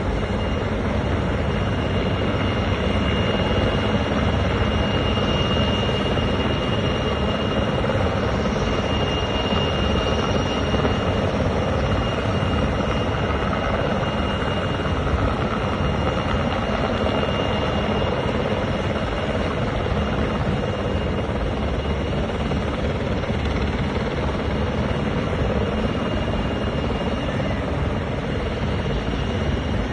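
Rescue helicopter hovering over the sea, its rotor running steadily, with a thin steady high tone over it.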